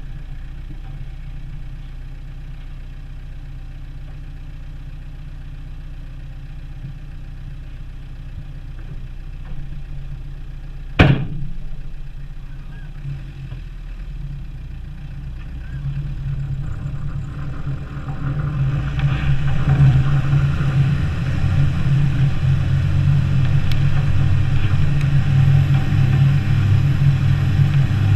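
Land Rover Defender 90 engine idling steadily, with one sharp knock about 11 seconds in. From about 16 seconds the engine revs up and runs louder as the truck pulls away through the snow.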